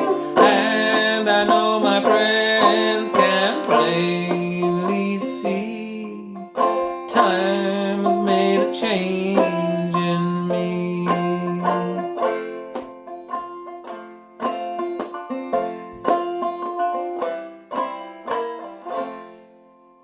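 Clawhammer banjo in open fDGCD tuning, plucked notes over a ringing drone string, playing the song's closing bars. It gets gradually quieter over the last several seconds, and the final notes ring out and die away.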